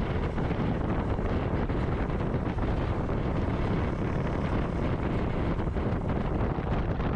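Steady heavy wind noise buffeting the microphone over the running of a moving motorcycle, with no break or change.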